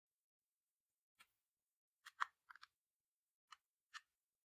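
Faint short clicks and taps, bunched a couple of seconds in, from a makeup brush scraping red lipstick out of a small plastic palette.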